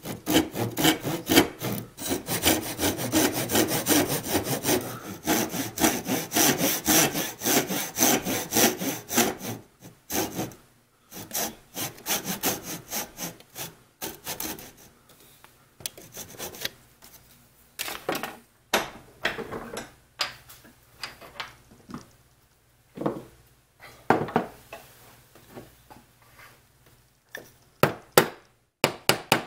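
Japanese pull saw cutting through small wooden blocks by hand: rapid back-and-forth strokes for about the first ten seconds, then slower, separate strokes. Near the end, a few sharp knocks as a chisel is driven into the sawn notch.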